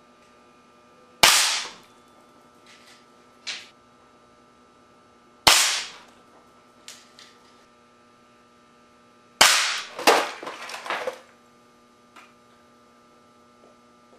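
Solenoid valve air cannon firing 6mm steel BBs: three sharp cracks about four seconds apart, each followed by fainter knocks, with a short clatter after the third.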